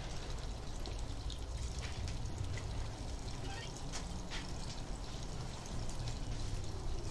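Steady low rumble of distant lawn-care engines, with a few faint ticks on top.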